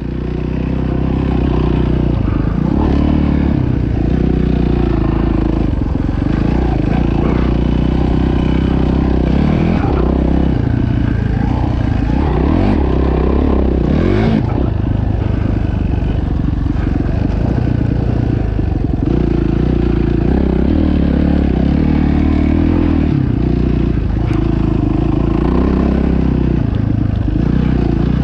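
Dirt bike engine running while riding, its revs rising and falling with the throttle.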